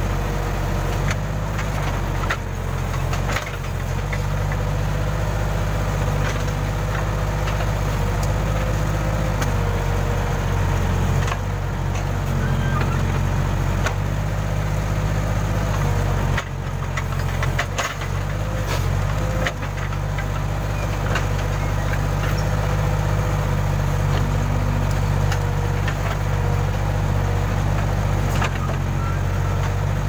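Case Super K backhoe loader's diesel engine running steadily while the hydraulic backhoe arm digs, the engine note dipping briefly as the arm works. Short knocks and clanks from the arm and bucket come a few times.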